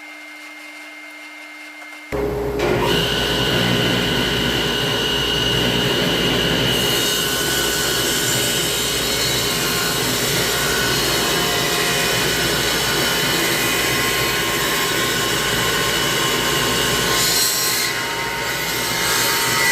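A dust vacuum runs steadily with a hum. About two seconds in, a table saw starts up loud and rips a board of dried poplar lengthwise, the sound dipping briefly near the end.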